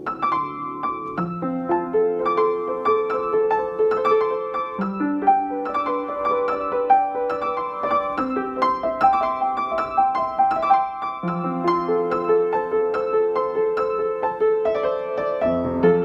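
Piano music: a flowing line of quick notes, several a second, over held low chords.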